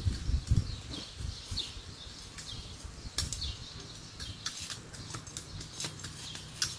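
Small hand hoes scraping and clicking irregularly against garden soil as potato plants are earthed up, with birds chirping in the background.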